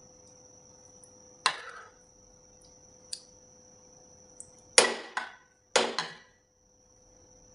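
Steel spoon knocking against a dish while yogurt is spooned over eggplant: one sharp clink about a second and a half in, a faint tick, then two quick pairs of clinks about five and six seconds in.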